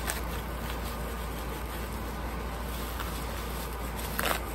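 Plastic bubble wrap being handled and pulled open, with faint crinkles and one louder crinkle about four seconds in, over a steady background hiss and low hum.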